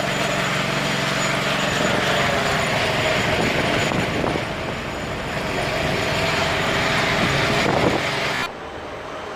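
A motor engine running amid dense outdoor noise. The sound drops abruptly and gets quieter near the end.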